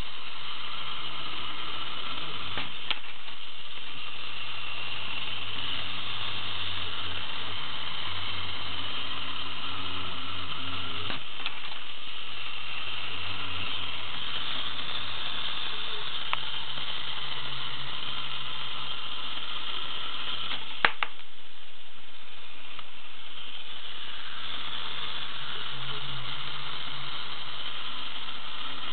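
Clockwork motor of a wind-up tin basketball-playing monkey toy running with a steady whirring, with a few sharp clicks scattered through, the loudest about two-thirds of the way in.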